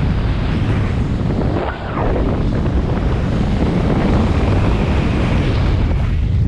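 Loud, steady wind noise on the microphone from the fast airflow of a speedflying descent, dipping briefly about two seconds in.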